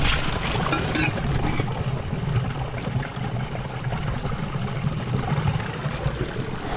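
Spring water trickling over pebbles and running into a stainless-steel water bottle held in the flow to fill it, a steady splashing wash with a few small knocks near the start.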